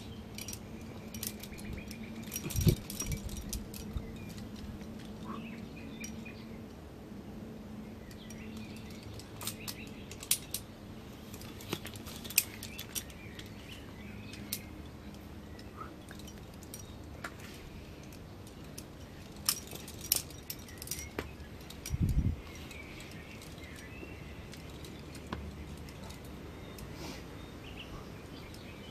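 Scattered light metallic clicks and clinks of climbing gear (carabiners and quickdraws) as a climber moves up a rock face, with birds chirping faintly and a single dull thump about three-quarters of the way through.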